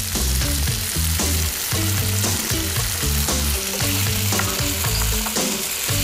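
Tomato sauce sizzling in a frying pan and being stirred with a wooden spatula, over background music with a moving bass line.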